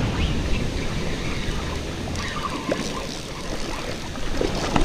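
Surf washing up the beach, with wind rumbling on the microphone.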